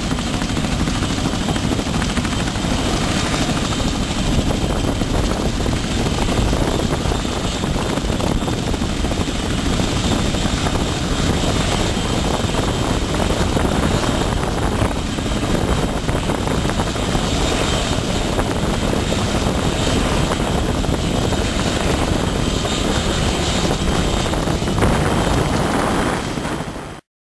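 Helicopter turbine engines and rotors running on a flight line, a loud, steady noise that stops abruptly near the end.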